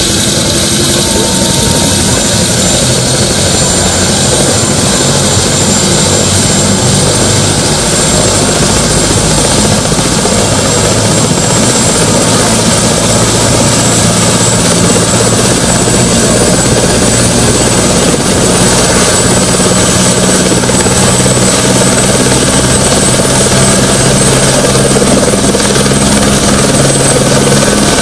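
Single-engine turbine helicopter running on the ground with its main rotor turning: a steady, loud rotor and engine noise with a thin, high turbine whine over it.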